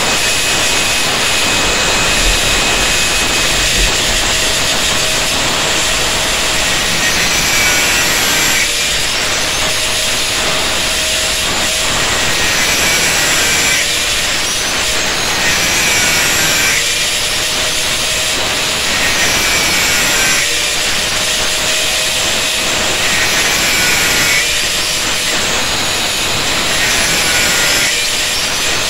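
Electric angle grinder with an abrasive disc running and grinding the surface of a steel saw blade, its sound changing in repeated passes about every four seconds.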